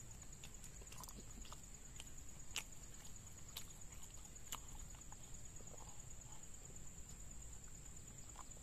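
Faint mouth sounds of eating and sipping a drink through a straw: scattered small clicks and smacks, over a steady high-pitched whine.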